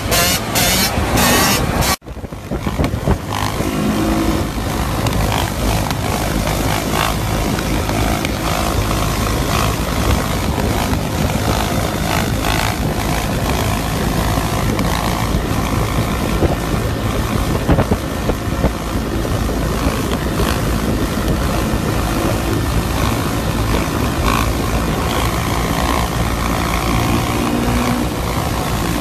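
Dirt bike engine running during a wheelie, with a sudden cut about two seconds in to another dirt bike held at steady throttle through a long wheelie. Loud wind rush on the microphone of the vehicle filming alongside drowns much of the engine.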